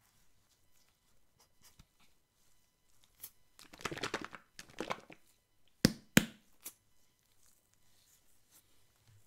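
A plastic squeeze bottle of pancake batter shaken in gloved hands: a rustling, sloshing burst lasting about a second and a half, followed by two sharp clicks.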